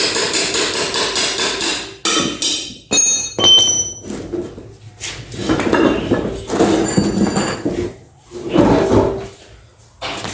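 Metal hammering and clanking while a wheel is worked off a Bajaj Pulsar motorcycle: a fast run of sharp taps for the first two seconds, a ringing metal clink about three and a half seconds in, then scattered heavier knocks.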